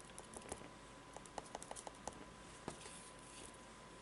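Faint, irregular soft taps of a round brush dabbing gray paint onto a painting, about ten taps, most of them in the first two and a half seconds.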